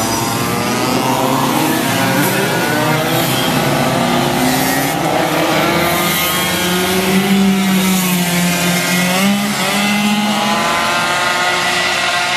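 Several motorcycles, a dirt bike among them, revving and pulling away as a group. Their engine notes overlap and rise and fall in pitch, with one engine held at steady revs for a few seconds past the middle.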